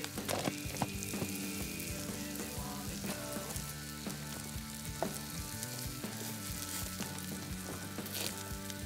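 Marinated tofu sizzling on a portable gas grill: a steady crackling hiss. Soft sustained music tones sit underneath.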